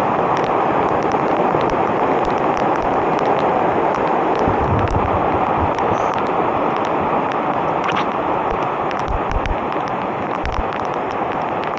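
Steady rushing roar of a rain-swollen river in flood, under heavy rain, with raindrops ticking sharply on the camera throughout and a few dull low thuds.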